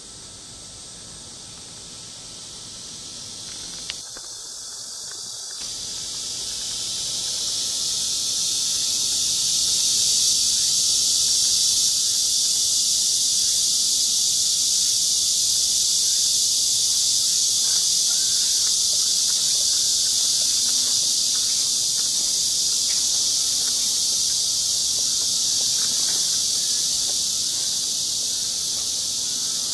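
A chorus of cicadas: a steady, high buzzing hiss that swells over the first several seconds and then holds level.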